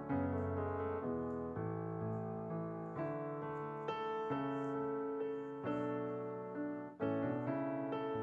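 Background piano music, gentle chords and melody.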